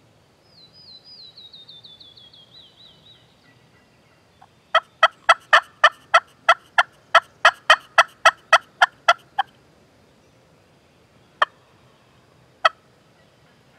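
Turkey yelping: a loud, even run of about seventeen sharp notes, a little over three a second, lasting about five seconds, then two single notes a second apart. Before it, a songbird sings a short falling trill.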